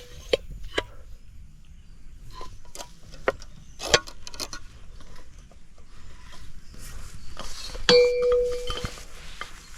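Scattered clicks and clinks of metal scrap parts being handled, with a sharper knock about four seconds in and a ringing metal clank near the end.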